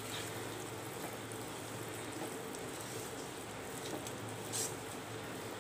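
Rice-flour batter with grated carrot and coconut sizzling faintly in a non-stick pan on low heat while it is stirred with a spatula and cooks into a thick dough, with one brief scrape about four and a half seconds in.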